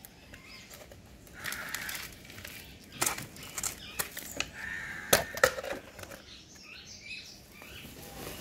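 Crows cawing, mixed with sharp knocks and scrapes from plastic flower pots and potting soil being handled. The loudest knocks come twice in quick succession a little past the middle.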